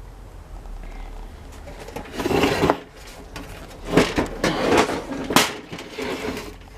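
Handling noise from a heavy box fan being shifted and turned around: a scraping shuffle about two seconds in, then a run of scrapes and sharp knocks over the second half.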